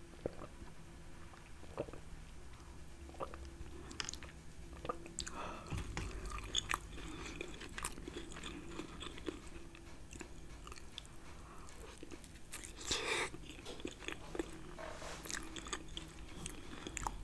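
Close-miked mukbang eating sounds: wet chewing and mouth sounds of sauce-covered seafood boil and potatoes, with scattered clicks from fingers handling the food and a louder wet burst about thirteen seconds in, over a low steady hum.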